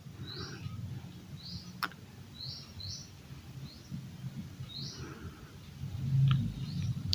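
A small bird chirping repeatedly, short high notes about once a second, over a faint low hum. There is a single sharp click just under two seconds in and a louder low bump about six seconds in.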